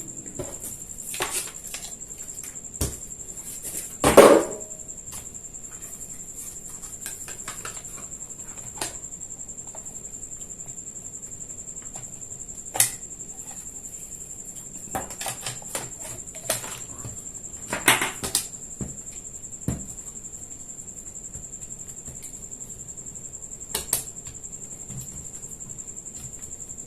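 Scattered plastic clicks and knocks from a Cosmic Byte gaming keyboard being handled while its rear adjustable feet are flipped and set, with a louder clatter about four seconds in and a few more knocks around eighteen seconds. A steady high-pitched whine runs underneath.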